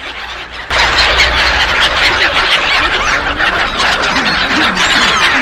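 A large flock of black-headed gulls calling together: a dense din of overlapping high cries that gets sharply louder less than a second in.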